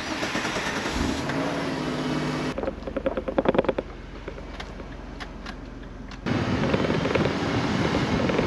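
Chrysler Sebring convertible being driven: engine running with road and wind noise. A few seconds in it drops to a quieter stretch with a quick run of rattling clicks, then louder driving noise with wind on the microphone comes back near the end.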